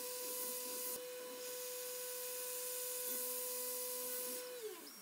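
Tormach CNC mill spindle turning a small end mill through the workpiece: a steady whine over a steady hiss. Near the end the whine slides down in pitch as the spindle spins down.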